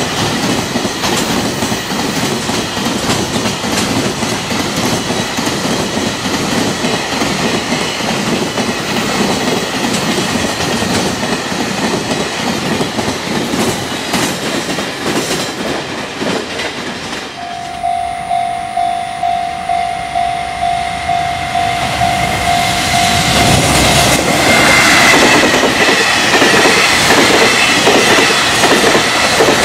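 Super Green Shuttle Liner container freight train passing at speed, its wheels clattering over the rail joints. Past the halfway point it changes to a level-crossing alarm ringing about twice a second. Then another container train comes up loud, its wheels clacking over the joints.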